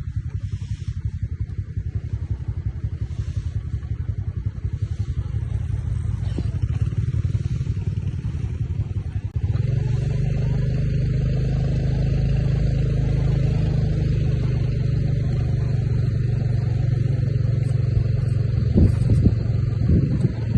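An engine running with a fast, even pulse. About nine and a half seconds in, it steps up to a louder, steadier note, and a few thumps sound near the end.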